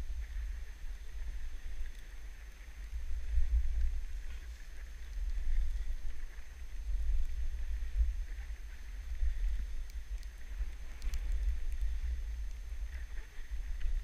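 Wind buffeting a GoPro's microphone while skiing downhill: a low rumble that swells and falls unevenly, with a fainter hiss of skis sliding over snow.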